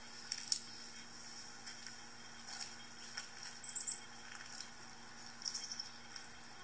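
Faint, high-pitched bird chirps and twitters from a bird video playing through a laptop's small speakers, coming in short clusters several times.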